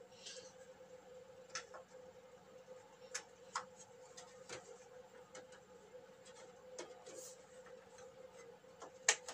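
Scattered light clicks and taps as new LED backlight strips are laid onto and pressed against a TV's metal backlight panel, with a faint steady hum underneath. The sharpest click comes near the end.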